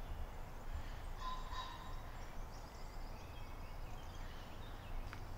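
Quiet woodland ambience: a low, steady wind rumble with a few faint bird calls about a second in.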